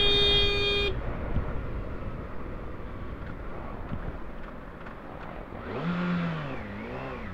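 A single-tone vehicle horn held, cutting off about a second in, then steady wind and road noise from a motorcycle riding in close traffic. Near the end comes a short wavering pitched sound.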